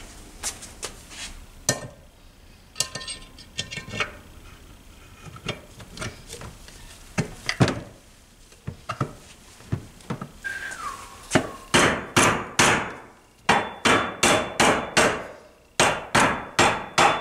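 Mallet knocking the two halves of a Tomos A35 moped engine case together, seating the heated case half over the crank and shafts. A few scattered clinks and knocks of the parts being handled come first, then, in the last six seconds, a run of sharp, loud knocks about two or three a second.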